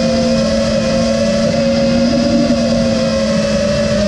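A 5-inch FPV quadcopter's four brushless motors (Brotherhobby 2306 1800kv on 6S) and propellers whining at a nearly steady throttle in flight, over a steady rushing noise.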